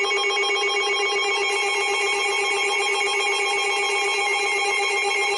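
Electronic emergency alert tones: several steady pitches sounding together without a break. This is the alert signal ahead of a severe thunderstorm warning being read.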